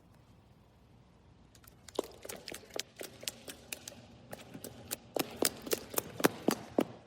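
A run of sharp, irregular clicks and taps over a faint hiss, growing louder and more frequent, then cutting off abruptly near the end.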